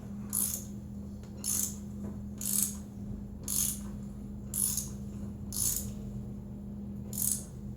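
Ratchet clicking in short strokes about once a second as it turns a Helicoil thread-repair tap through the last turns into a spark plug hole.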